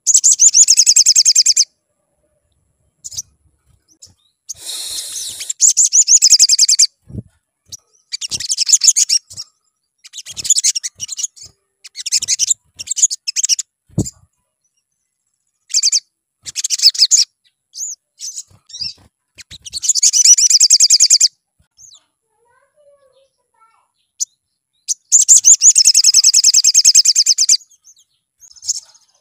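Male olive-backed sunbird singing: repeated bursts of fast, high-pitched trilling chirps, each a second or two long, with short pauses between. A single sharp click about halfway through.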